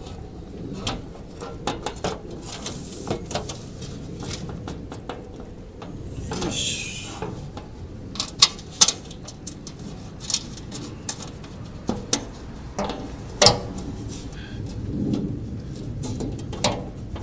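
Irregular clicks, taps and clinks of an aluminium under panel and its bolts being handled and fastened by hand, with a short scrape about six seconds in.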